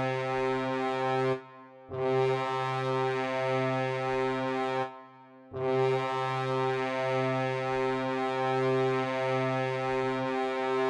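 Colorado Avalanche's 2015 hockey goal horn sounding in long, deep, steady blasts. One blast ends about a second and a half in, a second lasts about three seconds, and after a brief gap a final blast holds for about five seconds.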